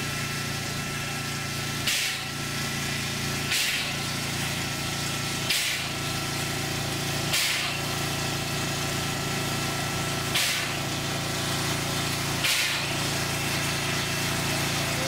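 Narrow-gauge steam locomotive standing with steam up: a steady mechanical hum, with a short hiss of steam about every two seconds.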